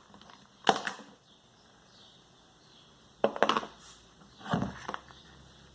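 Clicks, knocks and rattles from fan parts being handled and pulled apart: one sharp click under a second in, then two short clusters of rattling clicks a little past three seconds and around four and a half seconds.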